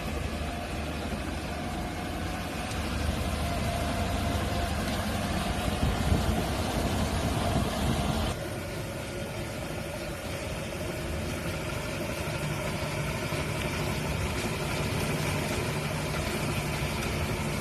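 Battery-powered ride-on mini street sweeper running, its motors and brushes making a steady mechanical hum. The sound changes abruptly about eight seconds in.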